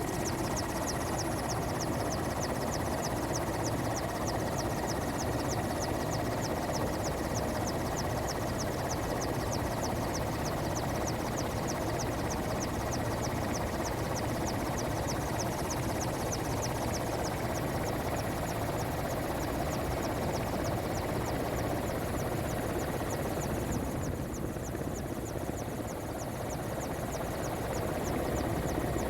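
Helicopter running in flight: a steady engine and rotor noise with a thin high whine and a fast, even ticking. The high part dips for a few seconds near the end.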